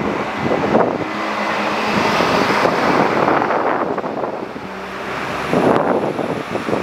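Wind buffeting the microphone: a loud rushing noise that swells and dies back in gusts, with a faint low hum underneath.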